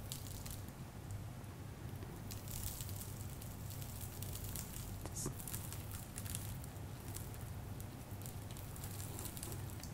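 Granular activated charcoal poured into a cut plastic bottle onto a layer of sand, the granules landing as a faint, irregular patter of small ticks and crackles.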